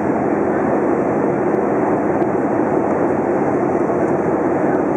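Steady cabin noise of an Airbus A320 airliner in flight, heard from inside the cabin by the window: the even rush of the engines and airflow, with a faint steady hum underneath.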